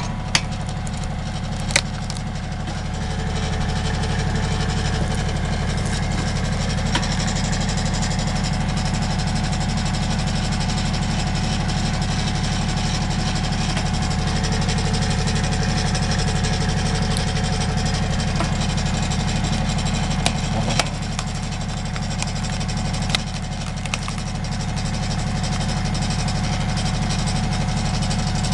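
Compact tractor engine running steadily to power a tractor-mounted hydraulic log splitter, growing a little louder a few seconds in. Sharp cracks of the log splitting under the wedge sound a few times near the start and again about two-thirds of the way through.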